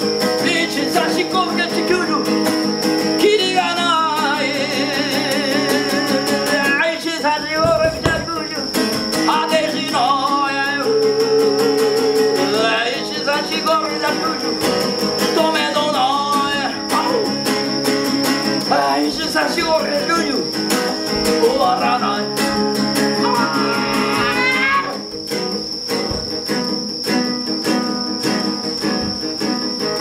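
Acoustic guitar playing steady chords, with a voice singing a wavering line over it from about three seconds in until about twenty-five seconds. Crickets chirp steadily throughout.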